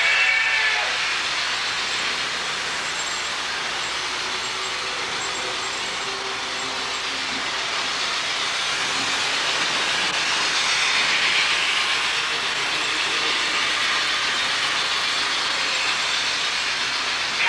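HO scale model trains running on the layout: a steady whir of the small electric locomotive motors and wheels on the track, growing a little louder about ten seconds in.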